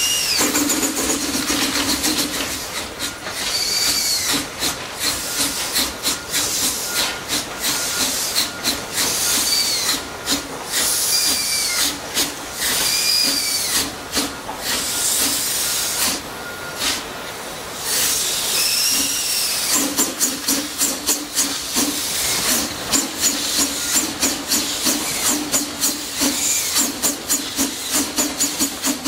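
JZ class 25 0-6-0 steam tank locomotive working at walking pace, steam hissing from its cylinders, with short rising-and-falling squeals now and then. From about two-thirds of the way in its exhaust beat comes through as a quick regular chuff, about two to three a second.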